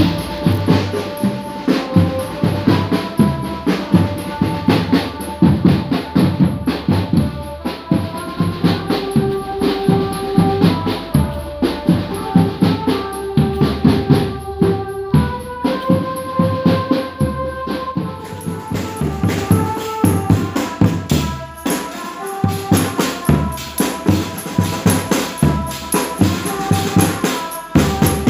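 Street percussion band of bass drums and other drums, with a tambourine jingle, beating a fast steady rhythm under a tune of held melody notes. This is ronda sahur patrol music, played to wake households for the pre-dawn Ramadan meal.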